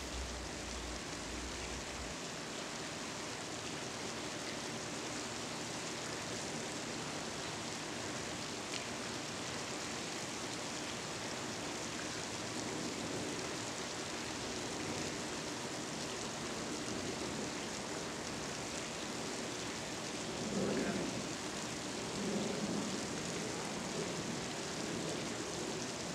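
Steady, even hiss of outdoor background noise, with a few faint low murmurs in the second half.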